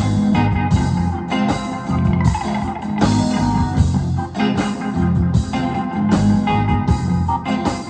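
Live rock band playing: electric guitar over bass, drums and keyboards, with a steady drum beat.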